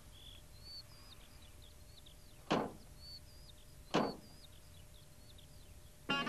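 Door of a post van being shut: two sharp knocks about a second and a half apart, over faint birdsong chirping.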